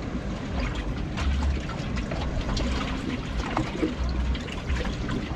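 Water lapping and splashing against the hull of a small wooden fishing boat, with an uneven low rumble and scattered small clicks throughout.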